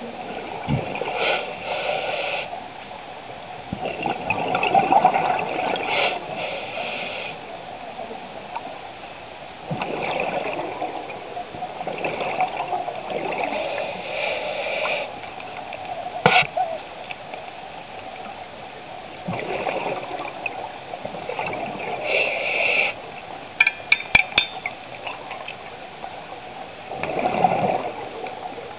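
Scuba diver breathing underwater through a regulator: bursts of exhaled bubbles every few seconds. A single sharp click about halfway through and a quick run of clicks later on.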